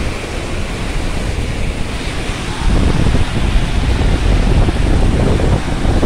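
Overflowing lake water rushing and churning as whitewater over a concrete spillway, a steady rush that grows louder about halfway through, with wind buffeting the microphone.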